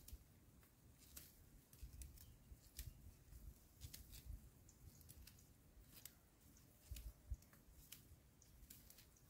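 Faint, irregular crisp snips and clicks, about one or two a second, of dry barley stalks being picked by hand, with a few soft low bumps, over near-silent ambience.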